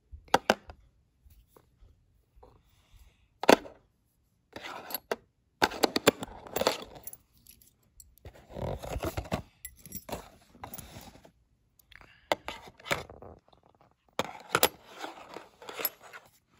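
Handling noise from a small toy construction kit: a cardboard box and paper instruction sheet rustling and scraping, with sharp clicks and clinks from small metal tools and parts.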